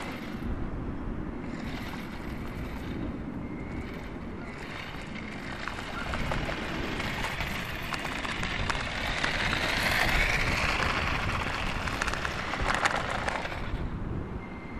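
A toy RC car's small electric motor whining and its plastic wheels rattling over coarse tarmac, with wind on the microphone. The whine rises to its loudest about ten seconds in, then falls away.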